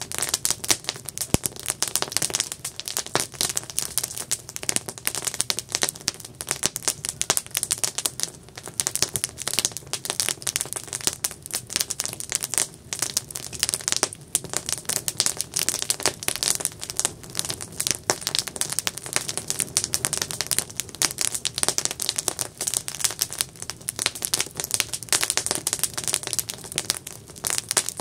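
Campfire burning with dense, irregular crackles and pops of the wood over a soft hiss.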